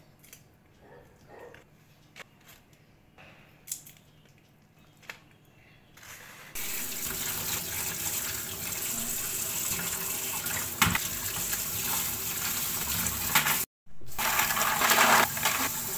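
Kitchen mixer tap running water into a stainless steel sink, with hands rinsing under the stream. It comes on about six seconds in after a few faint clicks, and breaks off for a moment near the end before running on.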